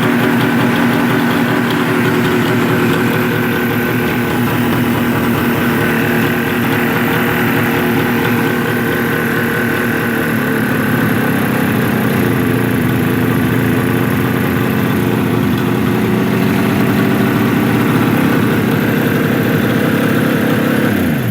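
1974 Suzuki GT550's air-cooled two-stroke triple idling steadily on its first run with the restored exhaust fitted. It is shut off and cuts out abruptly at the very end.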